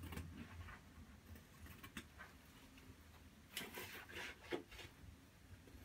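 Faint rustling and scraping of wallpaper being worked by hand against the wall, with a few light clicks and a cluster of scratchy rustles a little past halfway.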